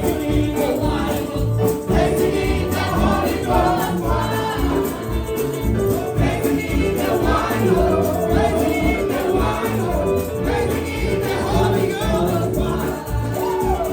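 A gospel praise song: a group of voices singing together over instruments with a bass line and a steady beat.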